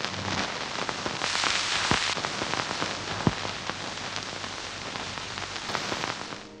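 A dense crackling hiss full of sharp clicks, like rain or static, over a faint low hum. It swells about a second in and cuts off suddenly near the end.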